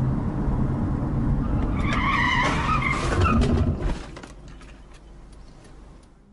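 Car tyres squealing in a hard emergency stop: a wavering screech starting about two seconds in and lasting over a second, over loud car road rumble that dies away near the end.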